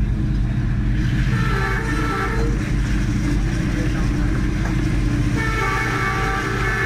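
Diesel locomotive engine running steadily under the cab, with two horn blasts: a short one about a second in and a longer one starting near the end.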